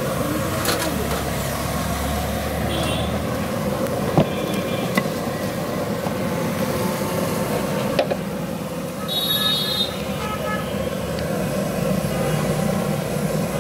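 Roadside street ambience: steady traffic noise with background voices, a few sharp clicks and knocks, and a short high-pitched toot about nine seconds in.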